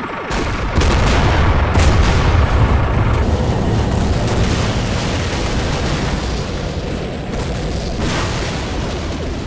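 Battle sound effects: heavy explosions and gunfire over a lasting low rumble. The loudest blasts come about a second and two seconds in, and the din eases off toward the end.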